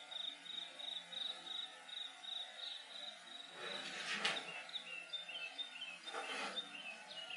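High-pitched, evenly pulsed chirping of a small animal, about four chirps a second. About halfway through it changes to broken chirps at a slightly lower, shifting pitch. Two short noisy rushes come about four and six seconds in.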